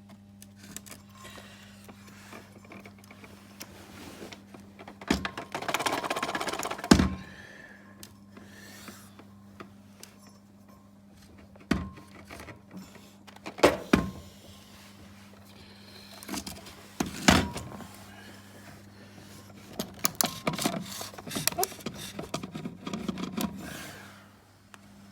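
Sharp knocks and scraping of metal parts as the armature, its end bearing tight in the motor housing, is worked out of a Makita chop saw. There are about five hard knocks, with rattling and scraping between them, over a faint steady hum.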